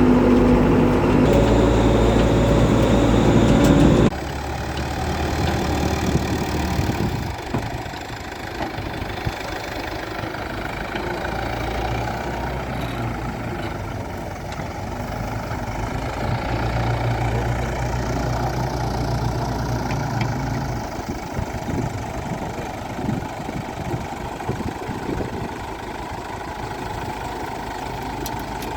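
Backhoe loader's diesel engine running, with its pitch and level shifting as it works. The sound drops abruptly about four seconds in.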